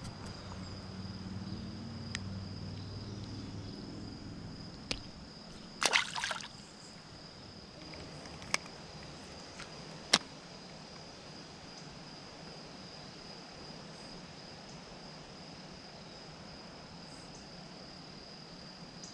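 Steady high insect trilling over quiet outdoor background. A few sharp clicks break in, and there is a short, louder noisy burst about six seconds in.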